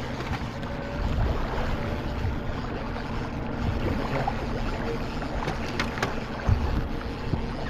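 Small fishing boat's outboard motor running steadily at trolling speed, a low even hum, with wind buffeting the microphone in a few low thumps.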